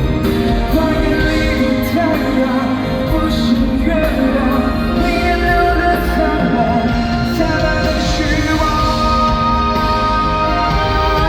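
Live pop-rock concert music: a male singer singing held, sliding vocal lines over a full band.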